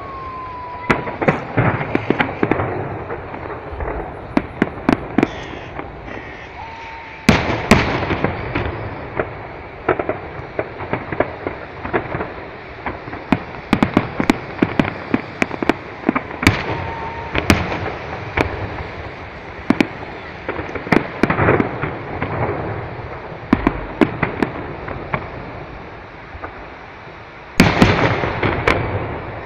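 Fireworks display: aerial shells bursting overhead amid a dense run of sharp crackles and pops. Heavier bangs come about a quarter of the way in, just past the middle, and near the end.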